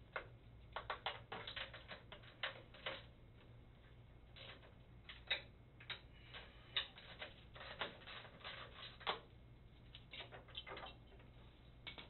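Socket ratchet clicking in short irregular runs of quick clicks as a nut is loosened on the pinsetter's elevator, letting the elevator chain go slack.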